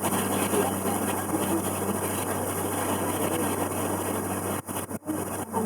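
Tour boat's engine running steadily under a noisy haze, with a constant low hum. The sound drops out briefly several times near the end.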